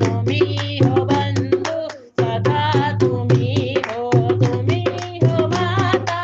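Devotional Hindi bhajan music: a melody over a steady low drone and a tabla beat, cutting out briefly about two seconds in.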